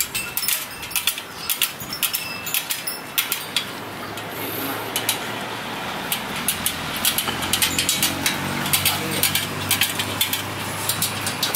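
Irregular light metallic clicks and ticks of a spoke wrench on the nipples and steel spokes of a motorcycle spoke wheel being trued on a stand. About four seconds in, a steady engine hum starts underneath.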